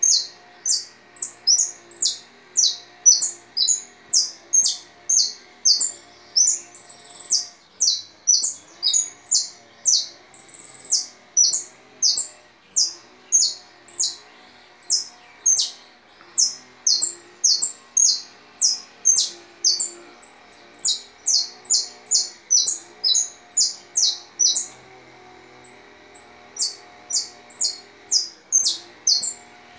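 Caged songbird singing a long, unbroken run of sharp, high, down-slurred notes, about two or three a second, with a couple of longer, higher notes a third of the way in. It is a tutor ("maestro") bird singing for young birds to learn its song.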